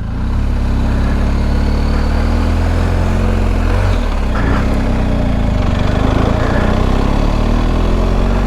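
A motor vehicle's engine running steadily, deep and continuous.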